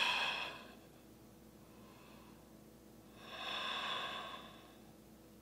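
A woman's audible breathing while holding a yoga pose: one breath trails off at the start, then a longer breath about three seconds in lasts about a second and a half.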